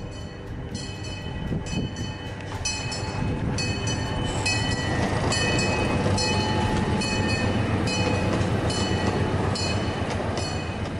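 Miniature park railroad train rolling past: a low rumble with a steady clicking of wheels over rail joints, about two clicks a second. It grows louder over the first few seconds as the train comes closer, then holds steady as the passenger cars go by.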